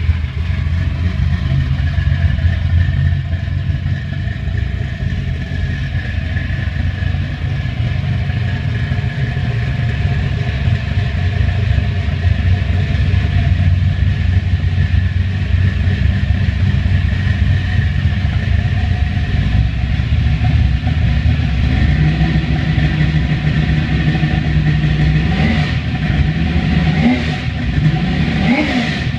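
1970 Chevrolet El Camino's 565 cubic-inch full-roller big-block V8 idling, with a few short revs near the end.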